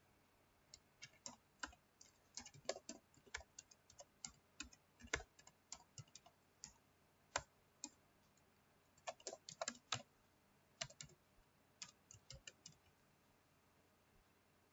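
Typing on a computer keyboard: irregular runs of separate key clicks with short pauses, stopping near the end.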